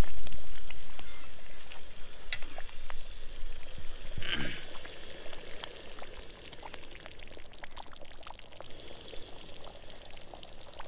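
Thick chicken curry bubbling and spattering in an iron kadhai over a stove, a steady busy hiss of small pops and blips with one louder gurgle about four seconds in. A low rumble at the start fades over the first two seconds.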